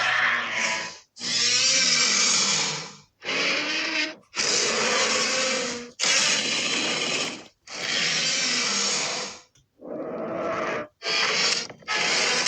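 A run of Godzilla roars, about eight in a row, each a harsh, rasping roar of one to two seconds that cuts off abruptly before the next begins.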